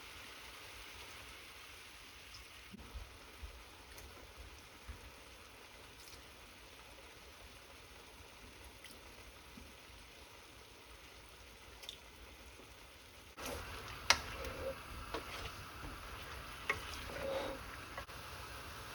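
Food sizzling in a cooking pot: a faint steady sizzle that grows louder about two-thirds of the way in, with scattered sharp clicks.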